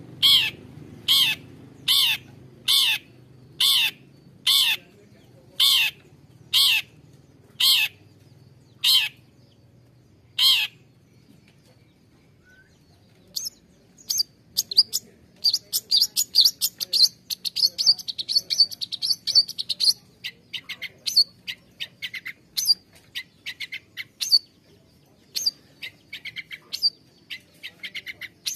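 Long-tailed shrike (cendet) giving about a dozen loud, harsh calls, roughly one a second. After a short pause it breaks into a fast, varied, high-pitched chattering song that runs on.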